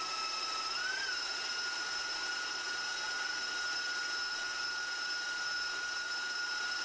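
Three KitchenAid stand mixers' electric motors and gearing running together with a steady high whine over a rushing hum, their beaters creaming butter in steel bowls. About a second in the whine bends up slightly in pitch and holds at the higher note.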